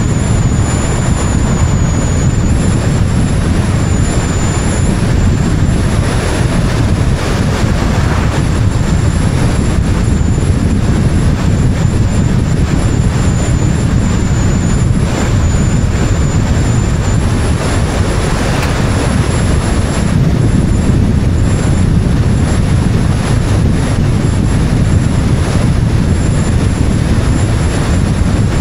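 Wind rushing over the microphone of an action camera mounted on the outside of a moving car, together with tyre and road noise: a loud, steady rumble that never lets up, with a faint high whine.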